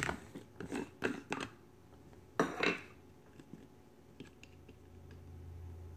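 Light clicks and knocks of blender parts being handled and set down on a countertop: a quick run of taps in the first second and a half and one louder knock about two and a half seconds in. A faint low hum comes up near the end.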